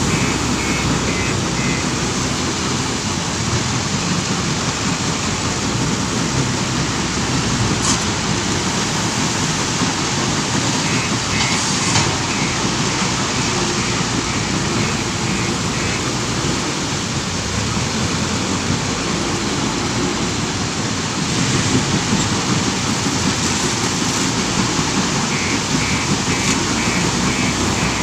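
Steady heavy din of stone crusher plant machinery and conveyors with a telehandler's diesel engine working under it as it loads crushed stone. Runs of short high warning beeps come and go, near the start, in the middle and near the end.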